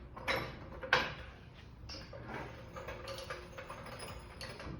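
Metal clanks and knocks of a low-profile floor jack being handled and pushed into place: two sharp knocks in the first second, then lighter clicks and rattles.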